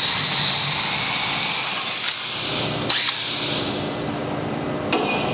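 Cordless drill running a hole saw into a walk-in freezer's wall panel, its motor whine rising slightly before it stops about two seconds in. A couple of sharp knocks follow.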